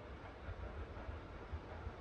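A train running, heard as a steady, noisy rumble with an uneven low throb underneath.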